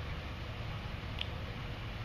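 Steady low background rumble with no speech, and a brief faint high chirp about a second in.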